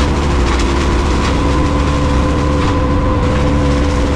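Engine-driven machinery running steadily: a deep rumble under a held, pitched drone, at an even loudness.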